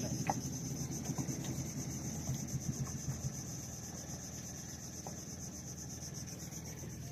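Insects buzzing steadily at a high pitch, over the low, fast-pulsing rumble of the outrigger boat's idling engine, which eases off slightly after about three seconds.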